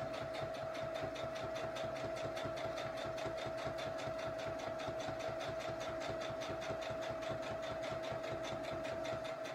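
Sewing machine running at a steady speed, stitching a seam that joins a fabric strip onto a pieced quilt block, with a fast, even stitch rhythm; it stops right at the end.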